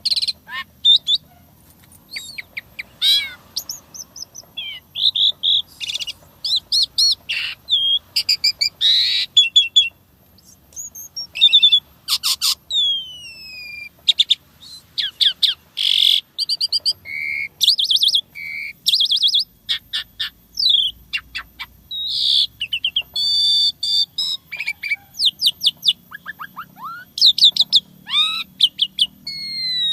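Asian pied starling (jalak suren) singing a long, varied song: quick strings of clicking, chattering notes mixed with clear whistles and falling whistled glides, one phrase after another with short pauses.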